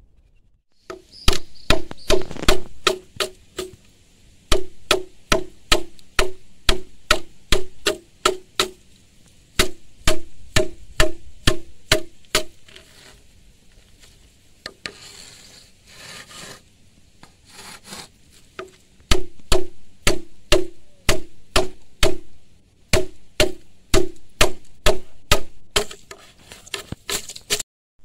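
Machete chopping into a hollow green bamboo pole, strikes coming about two a second, each with a short hollow ring. Midway there is a quieter stretch of fewer strikes with some scraping before the chopping picks up again.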